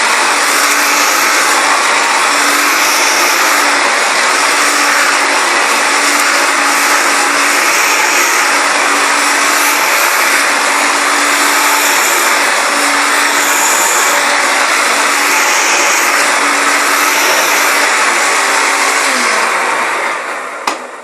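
Hoover Turbopower Junior U1102 vacuum cleaner running steadily with a steady hum under its noise during a pick-up test, then switched off near the end, its motor winding down in pitch and fading, with a click just before it falls quiet.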